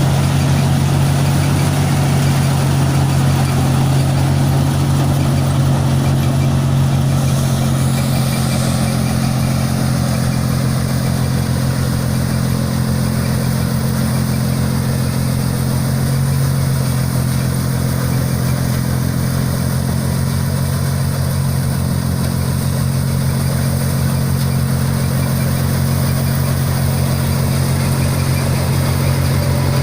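Diesel engine of a John Deere 5045D tractor running steadily at a constant speed, with a deep, even drone.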